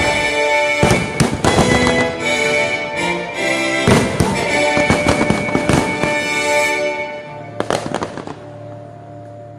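A fireworks show bursting and crackling in rapid succession over loud accompanying music. About seven seconds in the bursts thin out, leaving one last cluster and a quieter held note.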